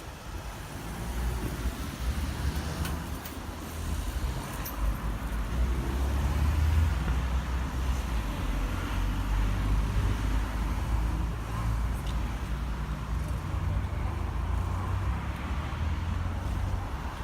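Low rumble of road traffic going past, swelling a couple of seconds in and easing off near the end.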